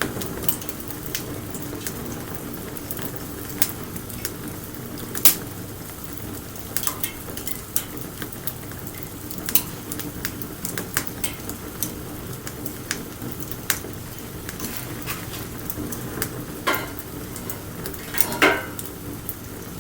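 Wood fire burning, with a steady low hiss and irregular crackling and snapping. A loud pop comes about five seconds in, and a louder burst of snaps near the end.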